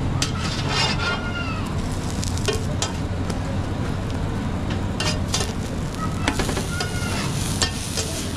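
Food frying and sizzling on a street vendor's flat griddle, with scattered sharp clicks and scrapes like a metal spatula working the griddle. A steady low hum runs underneath.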